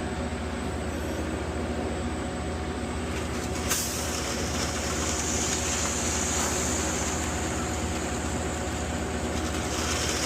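Concrete mixer truck running steadily during a pour, with a sharp click about a third of the way in followed by a high hiss that carries on through the rest.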